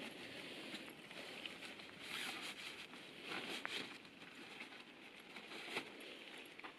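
Faint rustling of gear being handled, with a few light clicks and knocks, the sharpest near the end.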